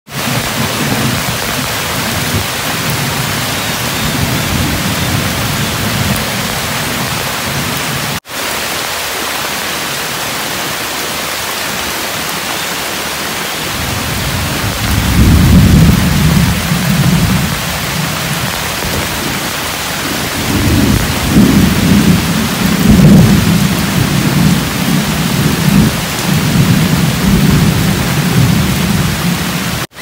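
Heavy rain pouring steadily with thunder rolling through it. Deep rumbles come in the first stretch, then swell again from about halfway, loudest about halfway through and again a few seconds later.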